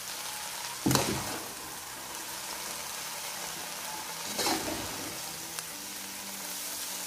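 Shredded cabbage, carrot and capsicum sizzling in a pot on the stove while being stirred with a metal spatula, with a steady hiss and two louder stirring strokes, about a second in and about four and a half seconds in.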